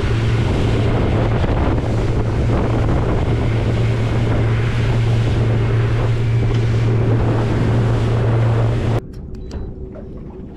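Boat's outboard motor running at speed, a steady low hum under heavy wind on the microphone and water rushing along the hull. The sound drops off suddenly about nine seconds in to something much quieter.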